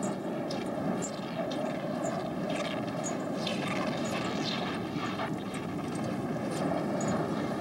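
Strong wind blowing across the snow, a steady rushing noise. Many short, high scraping sounds run over it, from sled runners and skis moving on the snow.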